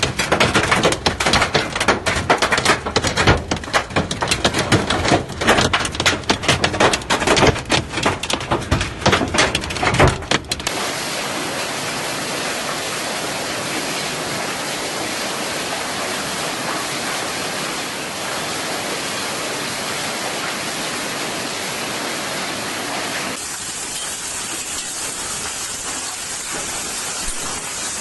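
Large hailstones pelting hard surfaces in a dense, irregular clatter of impacts for about the first ten seconds. Then it cuts abruptly to the steady hiss of heavy rain pouring down, and near the end it cuts to another stretch of downpour with a brighter, hissier tone.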